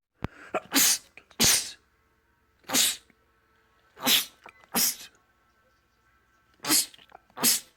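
A man sneezing again and again: seven sharp sneezes in quick succession, several coming in close pairs.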